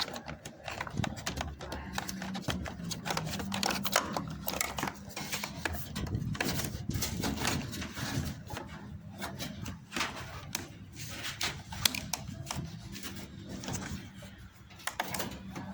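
Irregular clicks, knocks and rattles of washing-machine parts being handled during a repair, over a steady low hum from about two seconds in.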